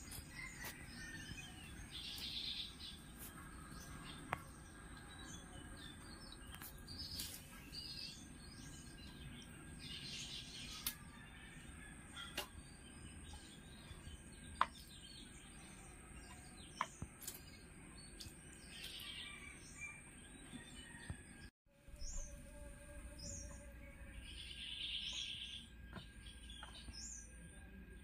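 Birds chirping now and then over a faint outdoor background, with a few sharp clicks scattered through; the sound cuts out for a moment about three-quarters of the way in.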